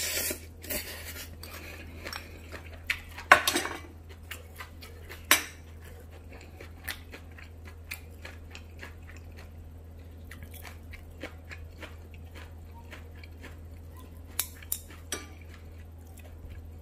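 Metal spoon clinking and scraping against a ceramic plate in scattered sharp clicks, with chewing between them and a steady hum underneath.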